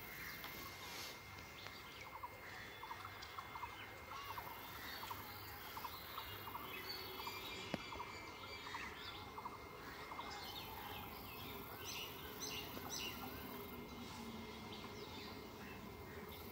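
Birds chirping and calling, with runs of quick repeated calls in the first half and sharper high chirps later, over a faint steady background and a thin steady high tone.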